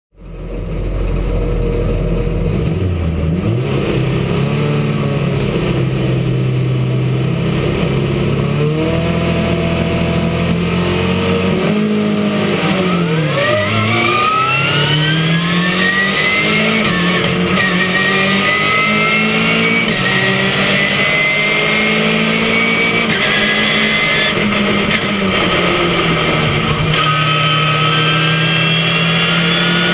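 Ginetta GT5 race car's engine heard from inside the cockpit. It is held at revs for several seconds, dips, then pulls hard, the pitch climbing and dropping back at each upshift as the car accelerates away in a pack of other race cars.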